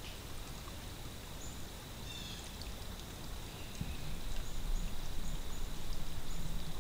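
Quiet woodland ambience: a low rustle of wind that grows a little louder about halfway through, with a few faint, short, high bird chirps and a brief trill.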